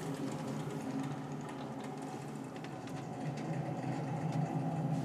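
Low droning accompaniment music for a contemporary dance variation: a steady, sustained drone that swells slightly about three seconds in.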